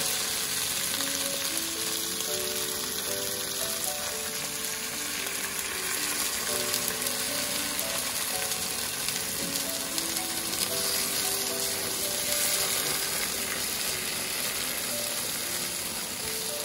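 Food frying in olive oil in a pan, a steady dense sizzle. A light background melody plays under it.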